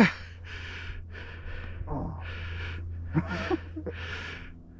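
Heavy breathing close to the microphone: about five short, rapid breaths spaced under a second apart.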